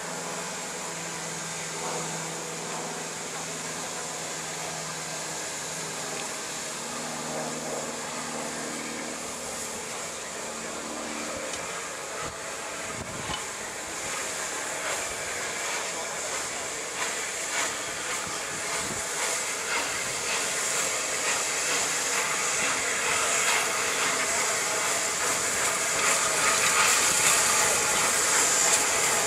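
Southern Railway Lord Nelson class No. 850, a four-cylinder 4-6-0 steam locomotive, hissing steam as it moves off slowly. Irregular exhaust beats and clanks set in about halfway through, and the sound grows steadily louder towards the end.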